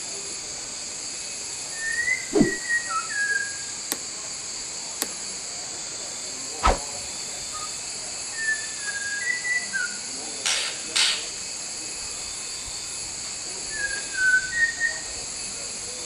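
White-rumped shama singing short phrases of clear whistled notes, three times: about two seconds in, around eight seconds in and near the end. Under it runs a steady high-pitched hiss, and a few sharp clicks fall between the phrases.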